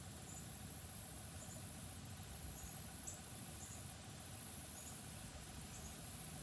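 Faint outdoor summer ambience: short high chirps, about one or two a second, over a steady high hiss.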